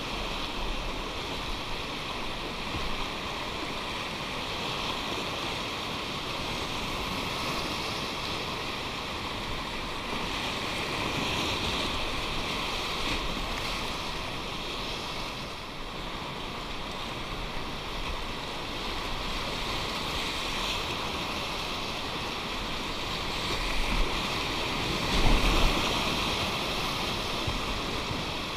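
Steady rushing of whitewater in a river, with a couple of louder surges near the end.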